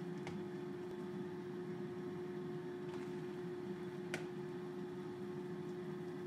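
Steady hum of an air fryer running while it preheats. A few faint taps from hands working in a plastic bowl, the clearest about four seconds in.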